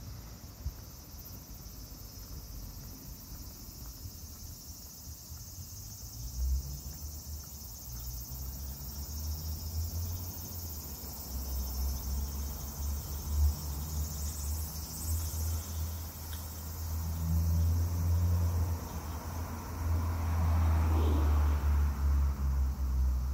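Cicadas singing in a steady high-pitched drone. Under them is a low rumble that grows louder from about six seconds in and is strongest near the end.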